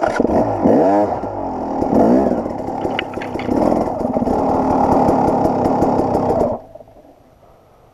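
Dirt bike engine revving hard in rising and falling bursts as it climbs a steep rocky trail, with a few sharp clicks mixed in; it stops suddenly after about six and a half seconds.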